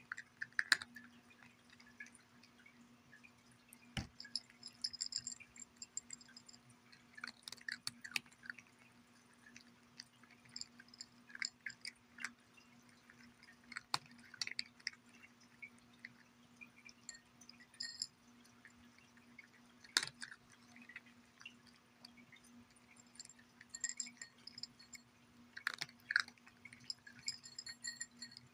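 A cat crunching dry kibble from a ceramic saucer: bursts of crunchy chewing every second or two, with a few sharp clicks among them.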